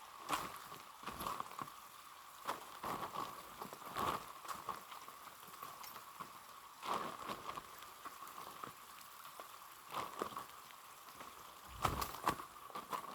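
Footsteps crunching along a dirt trail, irregular steps about one or two a second, over a steady faint background hum.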